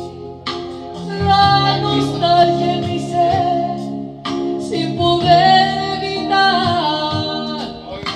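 A woman singing into a microphone over instrumental backing music, in long phrases with held notes, one starting about half a second in and the next around four seconds in.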